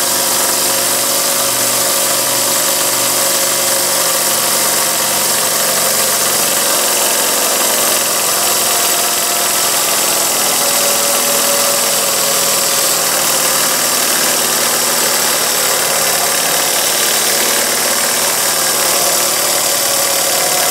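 Model vertical double-acting steam engine running steadily, driving a small dynamo by belt, with a continuous hiss. A faint tone in the running sound wanders slightly as the engine's speed is varied a little.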